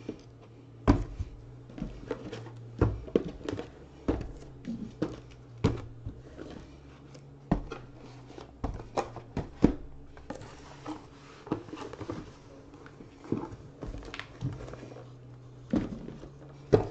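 Sealed cardboard boxes of trading cards being lifted, slid and set down on a tabletop: a string of irregular knocks and thuds, with a low steady hum underneath.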